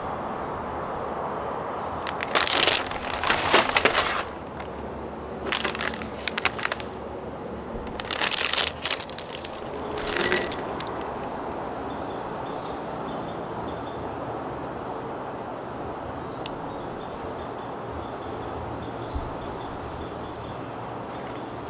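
Crinkling of a foil-lined snack packet being handled and opened, in four bursts over the first half, then crisp potato sticks tipped out into a ceramic bowl about ten seconds in. A steady background hiss runs throughout.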